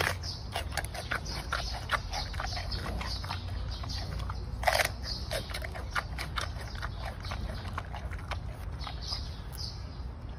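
Giant panda biting and chewing a bamboo shoot close up: a steady run of crisp crunches and snaps, with one louder crack a little before halfway through.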